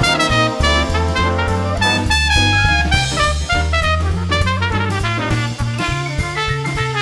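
Background music: upbeat swing-style jazz with brass and a drum kit over a walking bass line.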